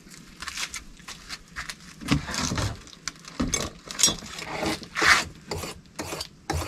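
A Dexter 7-inch knife's steel blade scraped across a sharpening stone in a series of short, uneven strokes, several a second, touching up the edge before filleting.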